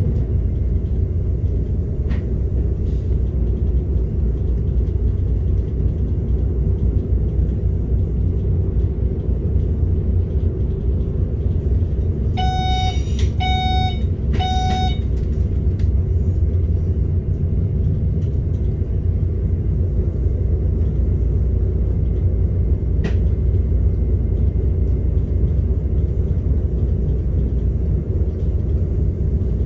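Steady low rumble of an SBB RBDe 560 'Domino' electric multiple unit running on the line, heard from inside the driver's cab. About halfway through, three short electronic beeps sound about a second apart.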